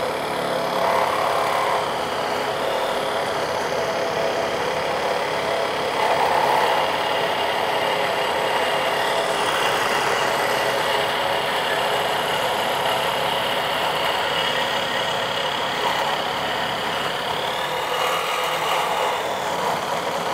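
Kobalt brushless single-handed reciprocating saw running steadily at speed, its blade sawing through a 2¼-inch pipe.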